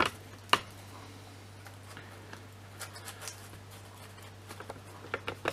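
Cardboard visor being handled and pressed onto a cardboard and papier-mâché helmet: a few sharp taps of card on card, the two loudest in the first second, then scattered light ticks and scrapes.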